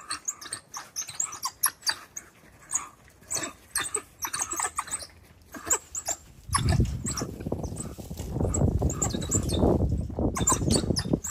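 A pack of African wild dogs twittering with excitement, a rapid run of short, high-pitched chirping calls. About six and a half seconds in, a louder low rumble joins in under the calls.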